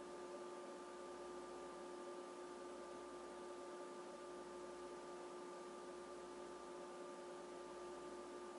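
Faint steady hum of several held tones over an even hiss, unchanging throughout.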